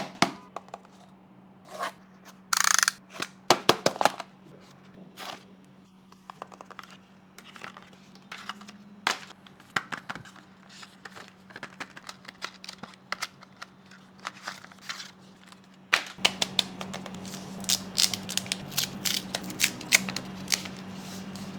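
Hands unpacking and handling a smartphone and its box: scattered clicks, taps and small knocks of cardboard and plastic, with a brief rasping sound about two and a half seconds in. A faint steady hum runs underneath and grows louder about sixteen seconds in.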